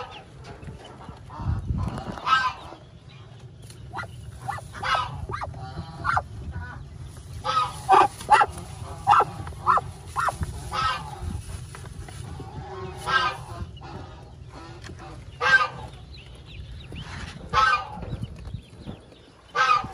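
Waterfowl giving more than a dozen short, harsh honking calls at irregular intervals, over a steady low hum.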